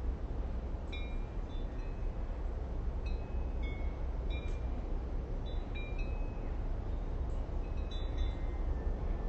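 Wind chimes tinkling on and off, short clear ringing notes every half second or so, over a steady low rumble of wind.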